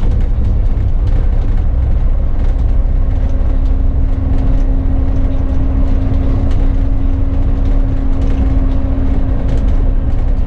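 Bus driving along the road, its engine and road noise giving a steady low rumble, with a steady humming tone coming in about two and a half seconds in.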